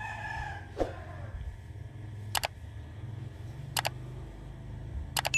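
Three sharp double clicks about a second and a half apart, like a camera shutter firing, over a low steady hum.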